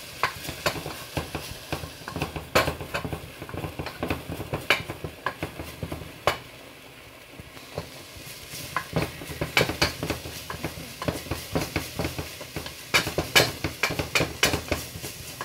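Wooden spoon stirring and scraping garlic and onion in a non-stick pot, with repeated knocks and scrapes over the light sizzle of the oil. The stirring eases off for a couple of seconds around six seconds in, then picks up again.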